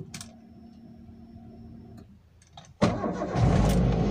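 Toyota Avanza petrol engine being started from inside the cabin. A key click is followed by a faint steady hum for about two seconds with the ignition on, then a second click. About three seconds in the engine cranks briefly and catches, rising to a fast idle for its cold warm-up.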